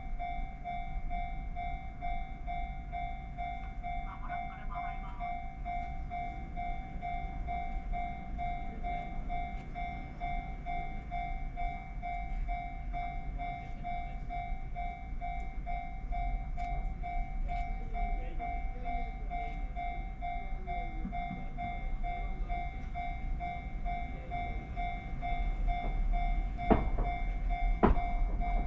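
Japanese railway level-crossing alarm ringing a steady, rapid repeating ding over a low rumble. Two sharp knocks near the end.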